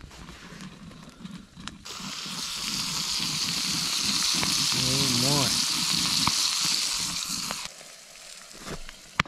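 Sausages sizzling in a long-handled cast-iron pie iron over an open wood fire: a loud steady sizzle that starts abruptly about two seconds in and stops suddenly near the end. Before it, faint scattered ticks of the burning wood.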